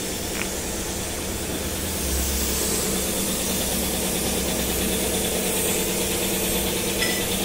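Air spray gun hissing steadily as base-coat primer is sprayed, over a steady low machine hum that grows a little louder about two seconds in.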